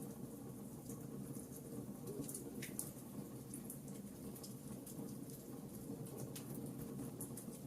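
Wood fire in a fireplace crackling, with a steady low rush of flame under frequent small irregular pops and snaps.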